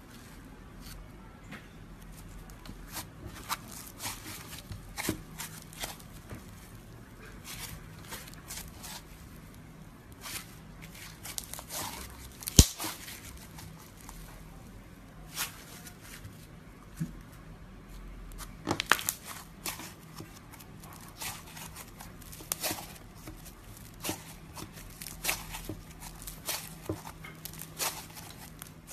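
Pink foam-bead slime (floam) squeezed and kneaded by fingers: irregular crunchy crackles and clicks of the foam beads, with one sharp loud click a little before halfway.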